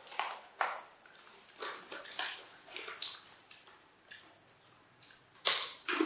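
Irregular crackles and crunches of a peanut snack being handled and eaten: foil snack packets crinkling and crunchy coated peanuts being chewed. The loudest crackle comes a little after five seconds.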